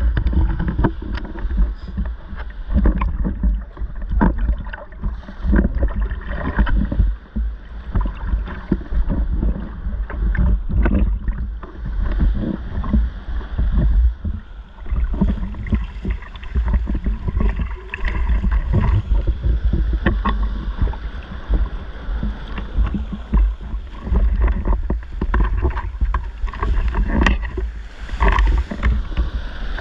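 Water splashing and sloshing close against the camera as a spearfisher wades out through shallow surf, with small waves breaking, in irregular splashes over a steady low rumble.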